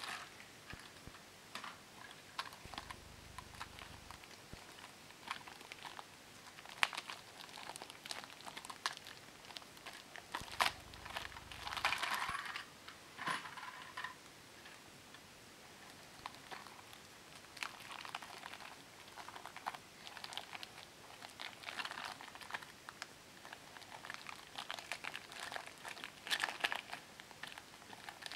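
Thin plastic wrapping bags crinkling in irregular spurts as toy train cars are pulled out of them, with scattered sharp clicks of the plastic cars being handled and set down.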